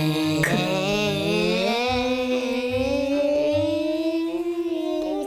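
A long, drawn-out sung note, wavering and sliding up in pitch about two seconds in, over background music with a low pulsing beat.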